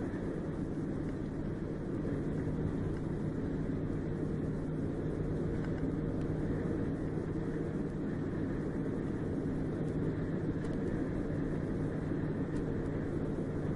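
Steady road and engine noise of a car driving at highway speed, heard from inside the cabin: an even rushing noise with a steady low hum.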